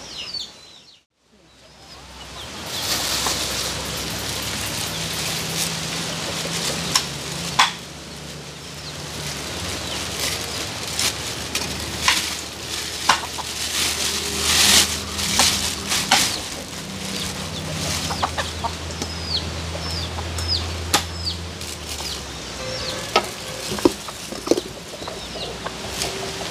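Knife chopping and cutting meat on a wooden block, irregular sharp knocks. Birds chirp in the background near the start and end.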